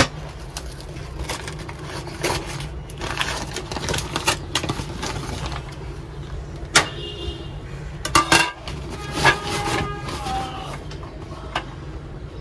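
Kitchen handling noise: sharp clinks and knocks of crockery on the counter, and stretches of rustling as a paper bag is opened and okra taken out, over a steady low hum.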